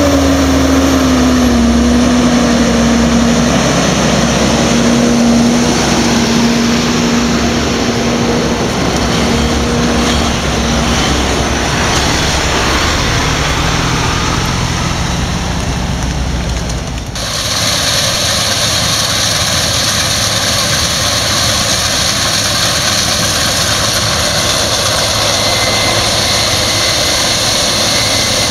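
Heavy diesel engines running as a tractor and a truck move through a muddy maize field. The engine pitch drops and then holds steady near the start. About 17 seconds in the sound cuts to a Case IH 8010 combine harvester running steadily in the field, a continuous drone with a high whine.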